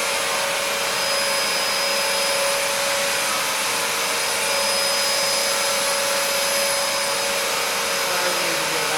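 Dyson DC33 upright vacuum cleaner running steadily: a constant rush of airflow with a steady motor whine.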